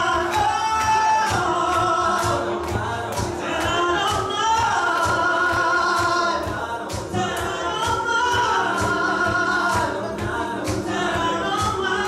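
A man singing into a handheld microphone over a dance backing track with a steady beat of about two strikes a second.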